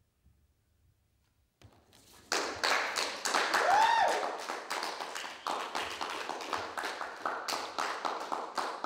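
A moment of near silence, then an audience starts applauding about two seconds in and keeps clapping. Soon after the clapping starts, one voice gives a single whoop that rises and falls.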